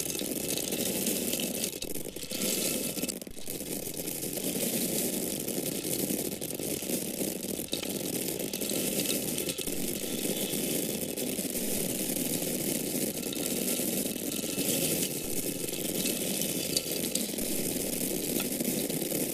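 Dry grain kernels pouring and falling in a steady stream: a dense, continuous rattle of many small ticks, dipping briefly twice near the start.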